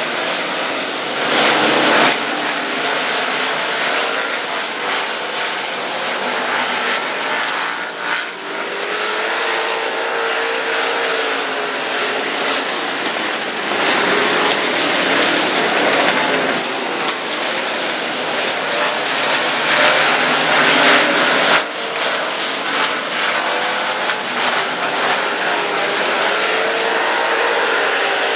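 A field of dirt modified race cars running hard around a dirt oval, the engine noise swelling and easing as the cars come past and move away.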